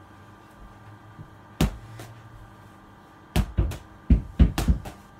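A ball thrown at a wall, thumping: one thump about a second and a half in, then a quick run of thumps from about three and a half seconds in as it hits the wall and bounces.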